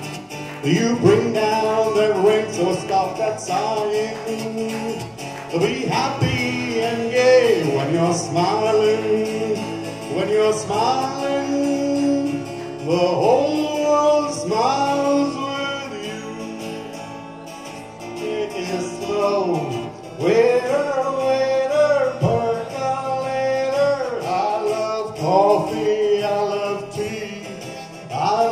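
A man singing with acoustic guitar accompaniment, part of a smooth-jazz medley. The vocal line glides and wavers, and no words are made out.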